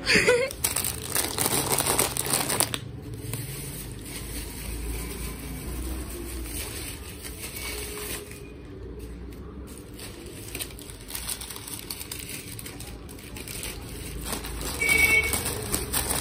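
Plastic and net gift-basket wrapping crinkling and rustling as hands handle it.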